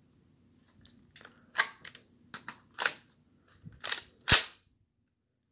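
Lego brick rifle's plastic mechanism being worked: a quick series of about six sharp plastic clacks and snaps, the loudest near the end.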